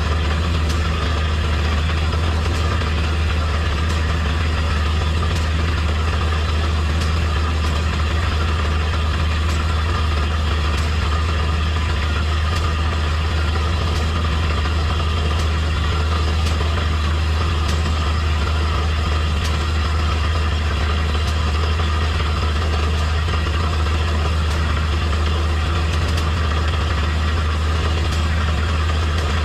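Truck-mounted borewell drilling rig running steadily, its engine and hydraulic drive giving a continuous deep drone with a strong low hum.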